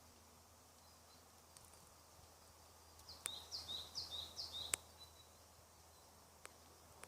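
A bird calling faintly: a quick run of about six short, falling chirps about three seconds in, with two sharp clicks, over a quiet steady hum.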